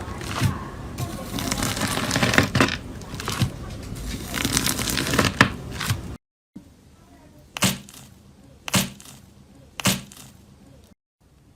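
Slime being squeezed and worked by hand, with dense crackling and clicking, stopping abruptly about six seconds in. A quieter stretch of slime follows, with three sharp pops about a second apart.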